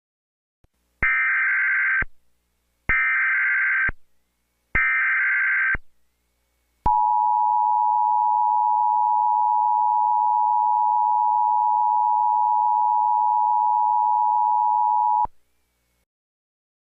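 Emergency Alert System tones: three one-second bursts of the warbling SAME data header, then the two-tone EAS attention signal held steady for about eight seconds. The signal cuts off suddenly.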